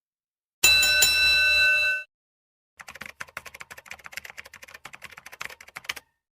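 A bell-like ring with several steady tones holds for about a second and a half, then cuts off. After a short pause comes about three seconds of rapid, uneven clicking, like typing on a keyboard.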